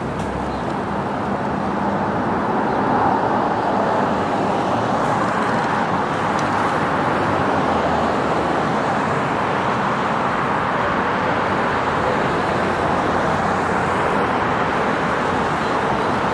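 City street traffic: a steady rush of car tyres and engines from vehicles passing on the road alongside, growing a little louder in the first few seconds.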